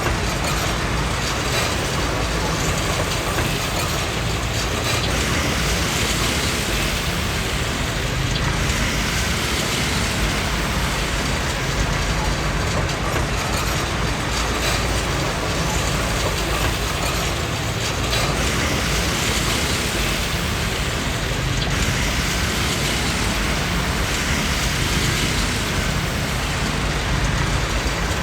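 Komatsu D20P crawler bulldozer's diesel engine running steadily while working, with the clanking of its steel tracks.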